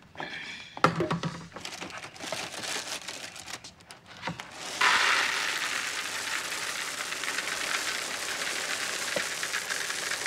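Packaging crinkling and a few knocks as a Cap'n Crunch cereal box is handled. Then, about five seconds in, a steady pour of dry cereal rattles into a bowl.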